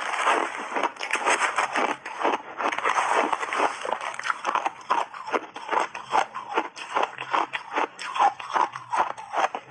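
Crunchy shaved ice being chewed close to a lapel microphone: a dense, uneven run of crisp crunches, several a second.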